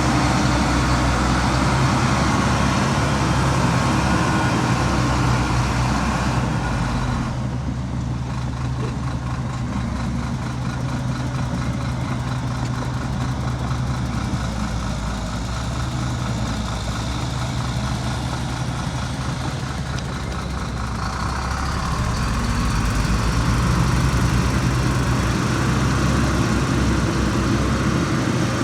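Heavy diesel earthmoving engine running steadily. Its higher noise eases off for a stretch in the middle and picks up again toward the end.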